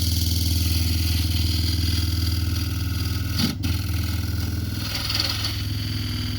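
Wood lathe motor running steadily while a carbide turning tool cuts a spinning yellow cedar and walnut bowl blank, the cut giving a changing hiss over the motor's hum. One sharp knock about three and a half seconds in.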